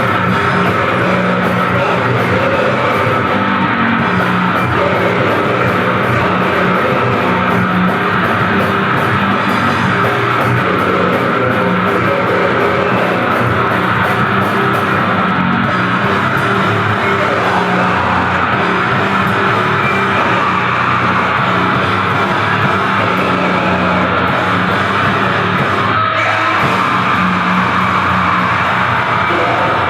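Grindcore played at full tilt: blast-beat drums, heavily distorted guitar and bass in a dense, unbroken wall of sound, with shrieked vocals. There is a brief break in the wall about 26 seconds in.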